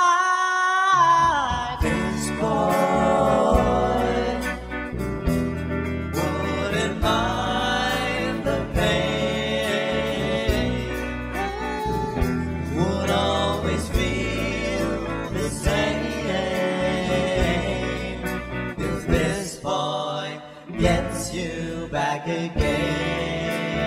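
Live rock band playing: sung lead vocals over electric guitars, electric bass and a drum kit, opening on a long held sung note that ends about a second in.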